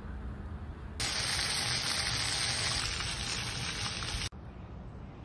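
Fountain water splashing and rushing, a loud, even hiss that cuts in about a second in and cuts off abruptly just after four seconds, over a low outdoor rumble.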